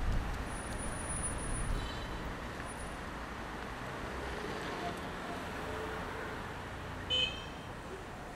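City street traffic: a steady rumble of passing cars, with one short, sharp horn toot a little over seven seconds in.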